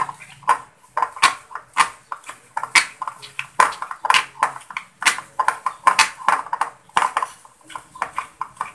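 Spoon stirring a thick icing-sugar-and-water paste in a glass bowl, clinking against the glass about twice a second.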